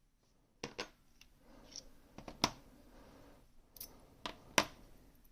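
Sharp clicks and taps of small metal lock parts and a tool being handled and set down while a pin-tumbler lock is taken apart: about five separate clicks, the loudest about two and a half and four and a half seconds in.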